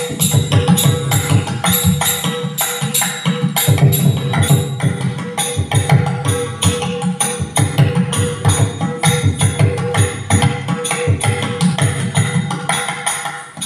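Ottamthullal percussion accompaniment playing an instrumental passage: rapid drum strokes with small hand cymbals ringing over them, several strikes a second, above a faint steady held note.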